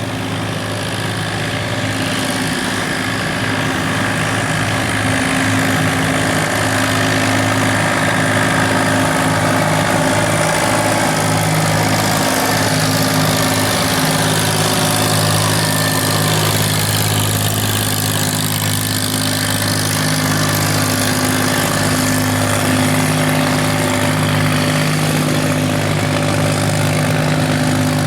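Longtail boat engine running steadily at speed: a constant drone with a rushing noise over it, growing a little louder over the first few seconds and then holding even.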